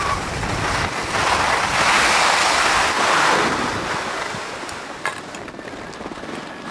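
Skis hissing and scraping over packed snow at speed, mixed with wind rushing over the microphone. Loudest in the middle, then dying away over the last few seconds, with a few faint clicks near the end.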